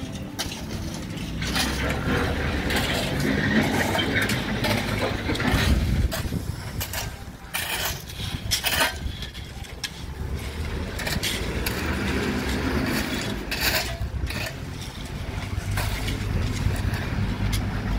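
Shovels scraping into and tossing crushed stone, in short irregular scrapes and crunches, over a steady low rumble of traffic that grows louder near the end.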